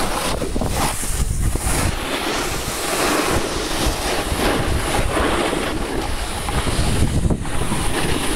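Steady rush of wind buffeting the microphone while riding downhill, mixed with the hiss and scrape of snowboards sliding over packed snow.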